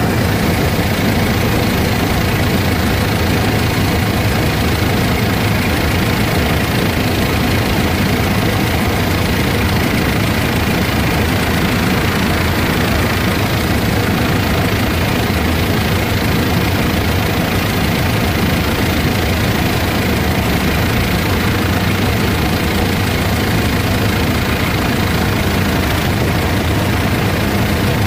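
Helicopter engine and rotor noise: a steady, unbroken drone in flight.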